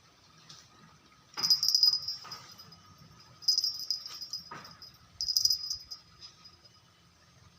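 An animal calling three times: short, high-pitched calls about two seconds apart, with a few sharp clicks between them.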